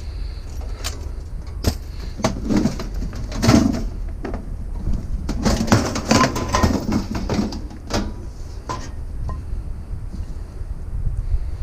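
Scrap metal being handled and set down: a run of irregular clanks and knocks, busiest in the middle, over a steady low rumble.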